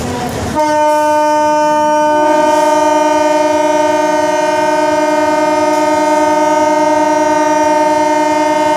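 Train horn sounding one long, steady blast that starts about half a second in. A second, slightly higher note joins about two seconds in, making a two-note chord that holds.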